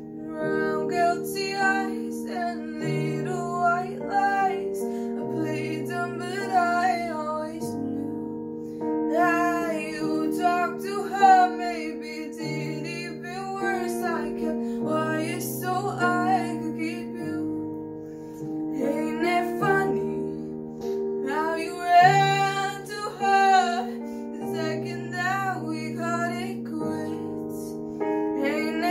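A young girl singing a slow pop ballad over sustained piano chords, her voice coming in phrases of a few seconds with short breaths between.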